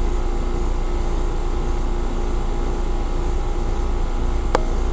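Trane XL15i straight-cool condensing units running, a steady mechanical hum of compressor and condenser fan. A single sharp click near the end.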